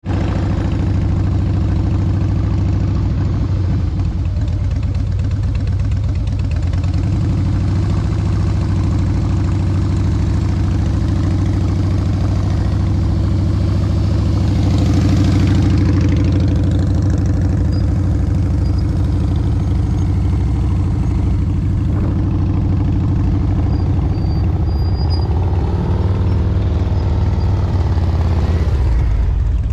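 Heavy Harley-Davidson V-twin motorcycles running at low, walking-pace speed, a steady engine note that swells a little about halfway through and again near the end.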